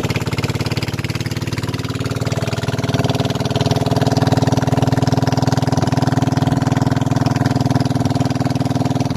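Small wooden motorboat's engine running steadily under way, with the hiss of the hull through the water.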